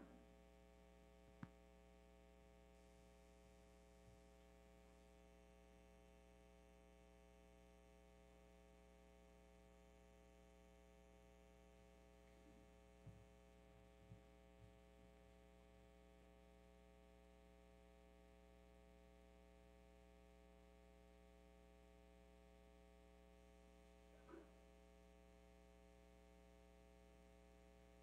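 Near silence: a steady low electrical mains hum, with a few faint knocks.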